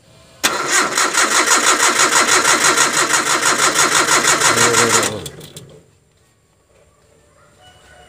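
Nissan Terrano's carburetted engine cranked on the starter motor for about five seconds with a steady rhythmic chug, without catching, then the cranking stops abruptly. It is cranked to test whether the newly fitted electric fuel pump pushes petrol through to the carburettor.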